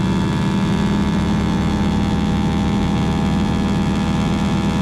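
AT-6 Texan's nine-cylinder radial engine and propeller droning steadily in formation cruise, heard from inside the cockpit as an even, muffled hum with no high end.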